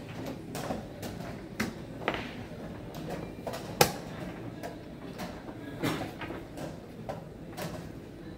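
Sharp clicks of plastic chess pieces being set down and a digital chess clock's button being pressed in a blitz game. The loudest click, about four seconds in, is a move made and the clock slapped. Fainter clicks from other games sound over a low room murmur.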